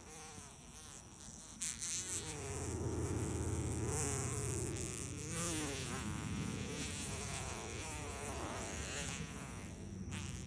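Black-and-yellow mud dauber wasp (Sceliphron caementarium), held between fingers, buzzing its wings in a low droning hum. The buzz starts about two seconds in and wavers in pitch.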